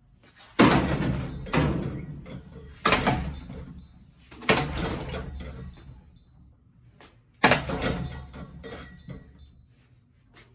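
A ceiling fan being smashed: four hard blows, a second or three apart, each a crash that rattles and rings away. The fan is holding up against them.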